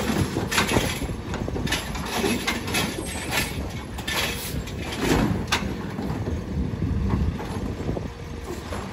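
A Heil Rapid Rail automated side-loader garbage truck runs steadily with its hydraulic arm working, as it sets one cart down and grabs and lifts the next. A string of sharp clunks and knocks from the arm and the plastic carts sounds over the running truck.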